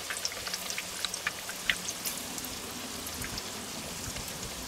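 Breaded zucchini and kohlrabi slices shallow-frying in hot oil in a pan, sizzling steadily with scattered small pops and crackles. One louder click comes a little under two seconds in.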